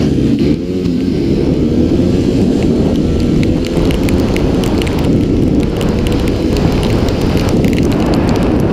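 70cc racing motorcycle's engine, heard from on board, climbing in pitch in the first second and then held at high revs, fairly steady with small dips.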